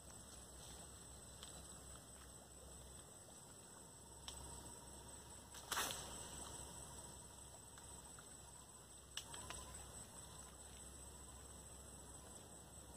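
Quiet open-air ambience with a steady faint high-pitched hiss, broken by a few sharp clicks, the loudest about six seconds in.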